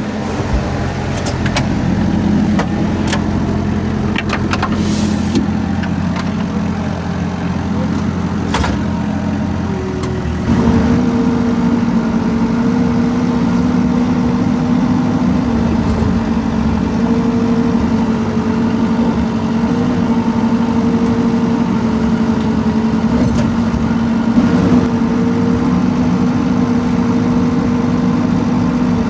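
Rippa R32 mini excavator's diesel engine running while it digs, with a few sharp knocks in the first nine seconds. About ten seconds in the engine note rises and gets louder, with a steady whine, as the hydraulics come under load.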